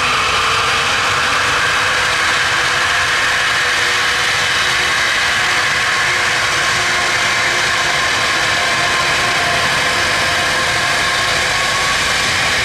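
Airbus A330neo's Rolls-Royce Trent 7000 turbofans running at low taxi thrust, a steady roar with a high engine whine made of several held tones.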